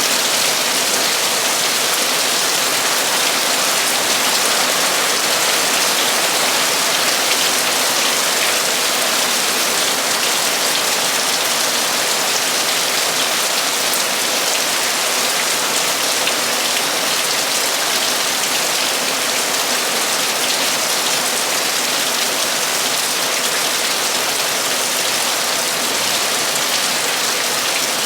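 Torrential rain drumming steadily on a metal roof, a dense even hiss of countless drops.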